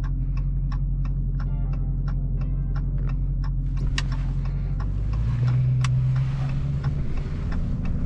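2020 Hellcat Widebody's supercharged 6.2-litre V8 idling, with the turn signal ticking about three times a second for the first three and a half seconds. A little past halfway the engine note steps up and gets a little louder as the car moves on.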